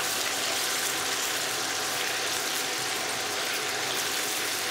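Chicken pieces and chicken mince sizzling steadily in hot oil in a frying pan, stirred with a spatula, over a faint steady tone.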